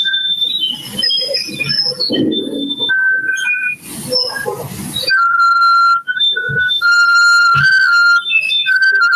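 Audio feedback howl from a microphone and loudspeaker loop: a loud, steady high whistle that keeps jumping to other pitches and back, broken by a few seconds of mixed noise near the middle.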